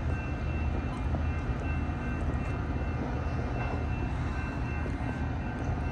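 Metra commuter train's diesel locomotive running steadily: a constant low rumble with a faint steady high-pitched whine above it.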